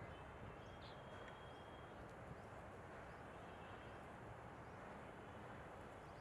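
Faint outdoor ambience: a steady low background hiss and rumble with a few faint, short, high bird chirps, one about a second in and more near the end.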